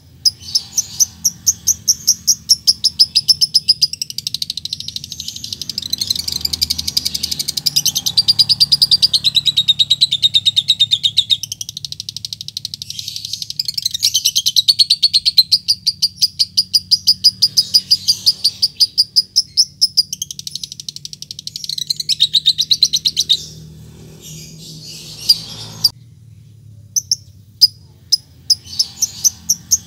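Fischer's lovebird giving its long ngekek chatter: very fast, high-pitched chips strung together in long unbroken runs, breaking off for a couple of seconds about three-quarters through, then a few single chips and a new run near the end. This is the challenge call used to bait rival lovebirds into answering.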